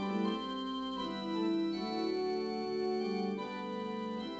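Background music: slow, held keyboard chords, the notes changing every second or so.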